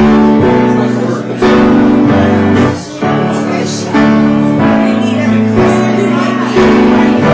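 Loud live music with sustained chords that change every second or so, recorded through a Samsung Galaxy S2 Epic Touch phone's microphone, which gives it a bad, overloaded sound.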